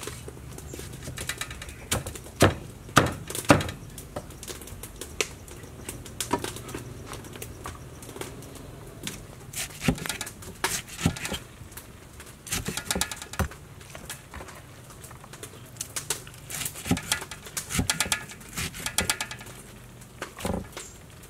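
A large kitchen knife chopping soft cooked greens on a round wooden chopping board, in irregular runs of knocks, the heaviest a few seconds in. Birds chirp now and then behind it.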